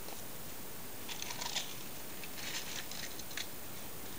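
Faint rustling and crackling in two short spells, over a steady hiss.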